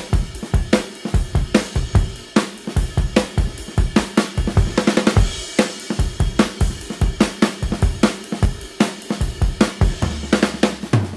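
Background music carried by a fast, steady drum-kit beat with hi-hat and snare; a low bass line comes in near the end.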